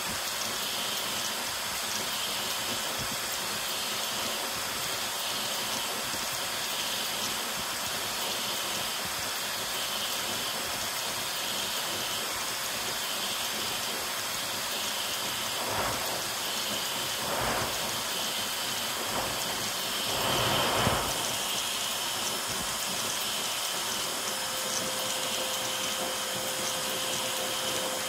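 Ender 5 Pro 3D printer rebuilt with a ZeroG Mercury 1.1 kit, printing at high speed: a steady rushing hiss of air from its CPAP part-cooling blower, with the whine of the stepper motors. There are a few brief surges of noise, the loudest about two-thirds of the way through.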